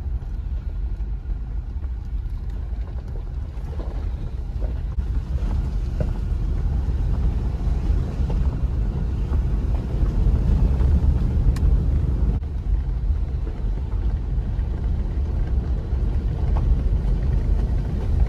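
Jeep Gladiator driving on a dirt and gravel road: a steady low rumble of engine and tyres, with a few faint knocks and clicks.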